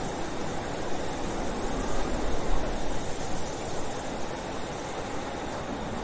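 Blizzard wind blowing hard and steadily, a dense hiss with a faint wavering howl, swelling in a gust about two and a half seconds in.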